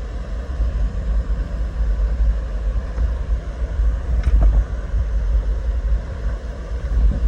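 Steady low rumble of rushing water from a waterfall, with wind buffeting the microphone, and a short thump right at the end.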